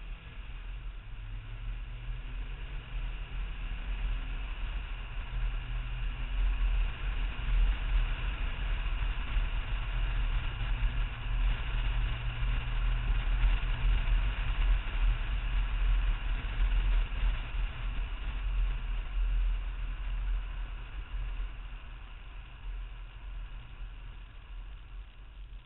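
BMW E34 M5 driving, its engine, tyre and wind rumble picked up by a camera mounted outside low on the rear door. The rumble grows louder through the middle and eases off near the end as the car slows.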